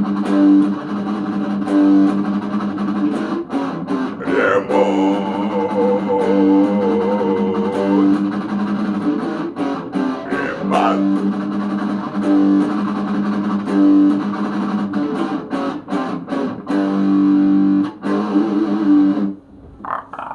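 Instrumental band music led by guitar, with a held wavering lead note partway through; it cuts off suddenly about a second before the end.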